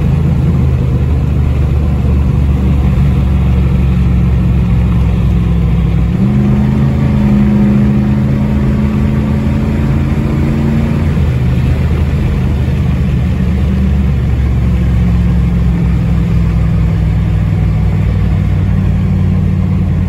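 1998 Jeep Grand Cherokee 5.9 Limited's 5.9-litre V8, exhaust cutout closed, heard from inside the cabin while cruising on the highway. About six seconds in, the engine note steps up in pitch and holds for about five seconds, then settles back to a steady cruise.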